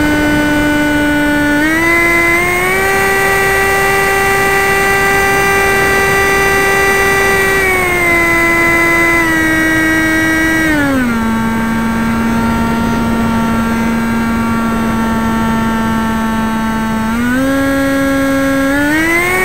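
RC Talon model plane's motor and propeller whining steadily as heard from a camera on its tail, the pitch stepping with throttle changes: up about two seconds in, down around eight and again around eleven seconds to a low note, then up again near the end.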